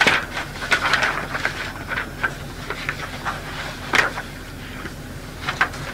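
Irregular rustling and clicking of paper being handled, as pages of a report are turned, over a steady low tape hum and hiss. The sharpest clicks come right at the start and about four seconds in.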